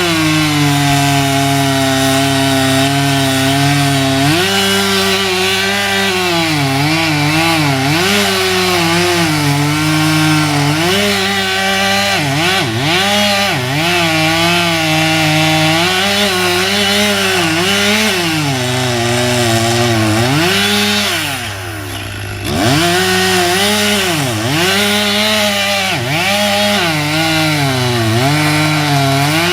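Chainsaw running and cutting wood, its engine pitch rising and sagging again and again as the chain bites in and frees up. About 21 seconds in it falls away briefly, then revs back up and keeps cutting.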